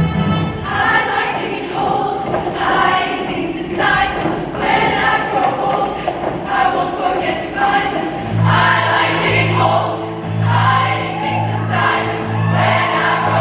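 Women's show choir singing in full harmony with an accompanying band. About eight seconds in, a low, evenly pulsing bass part comes in beneath the voices.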